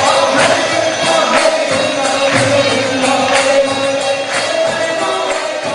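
Devotional chanting music: a group singing over a sustained drone, with a sharp percussive stroke about once a second.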